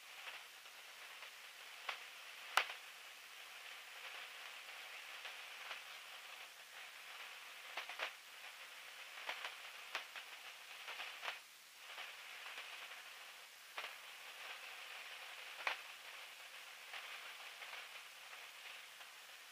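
Faint steady hiss from the biplane's cockpit intercom line, broken by a dozen or so scattered clicks and crackles, the sharpest about two and a half seconds in. No engine sound comes through.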